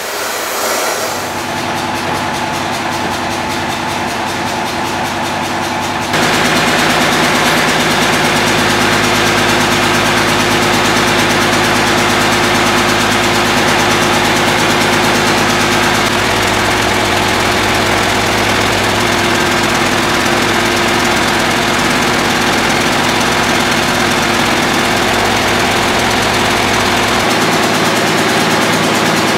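Gas cutting torch hissing as it cuts through steel, for about the first six seconds. Then a crane truck's engine idles steadily, its note shifting near the end.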